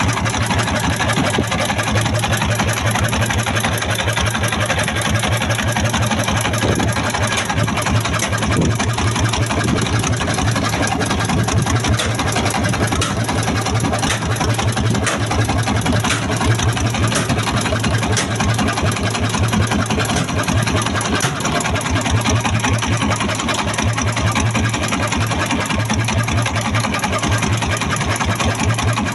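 A boat engine running steadily, with a fast, even beat of about five pulses a second over a low hum.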